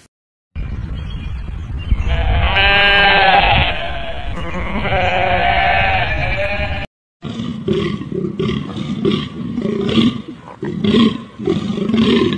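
Goat bleating loudly twice in long, drawn-out calls. After a short break, a bull elk gives a run of short, choppy grunting calls.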